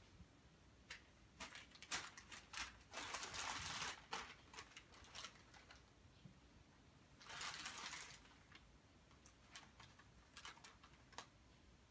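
Crumpled paper crinkling under a cat moving about in it: scattered sharp crackles, with two longer rustles about three seconds in and about seven and a half seconds in.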